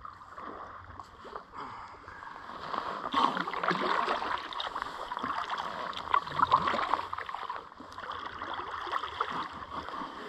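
Kayak paddle strokes dipping and splashing in calm river water, coming in uneven swells.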